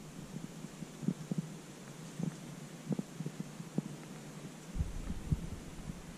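Footsteps of a hiker walking along a trail: a series of soft, dull thuds, roughly one every half to one second.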